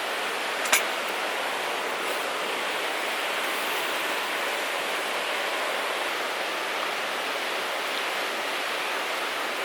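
Steady rushing, water-like noise with no rhythm or change, and one sharp click about a second in.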